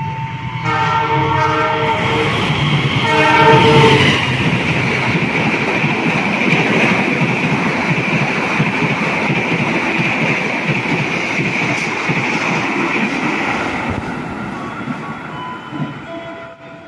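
Horn of a CC 206 diesel-electric locomotive sounding two blasts, the second shorter, as the express passenger train nears. The train then passes the platform at speed, its wheels on the rails making a long, steady rush that fades away near the end.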